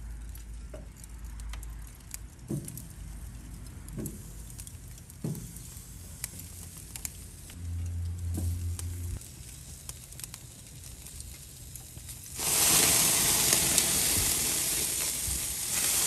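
Oiled potato wedges laid one at a time onto a hot charcoal grill grate, each landing with a short tap and sizzle every second or so. About twelve seconds in, a loud, steady sizzle sets in as the grate fills.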